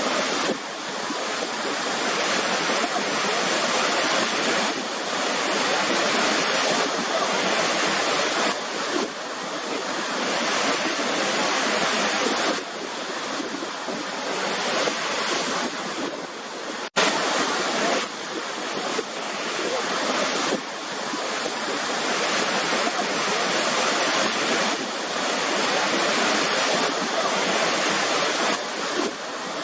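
Waterfall crashing steadily: a dense, even rush of falling water with slow swells. About seventeen seconds in, the sound cuts out for a split second and comes straight back.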